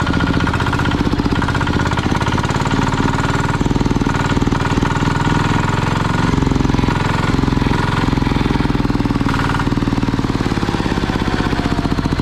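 Turbocharged single-cylinder walking-tractor diesel engine running with its rapid, even knock, the revs shifting a little as the throttle lever on the injection pump is worked by hand. A faint falling whine comes in near the end.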